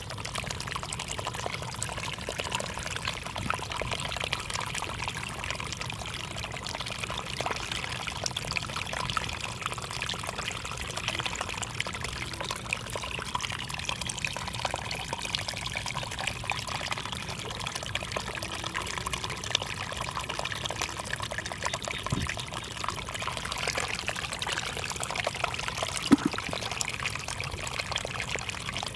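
Water running and trickling steadily, with many small clicks and splashes and a sharper knock near the end.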